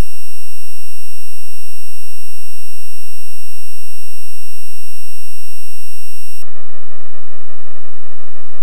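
A music track sped up to an absurd tempo and boosted until it turns into loud, steady, buzzing tones. A dense, bright chord of held tones changes abruptly about six and a half seconds in to a lower, thinner set of tones.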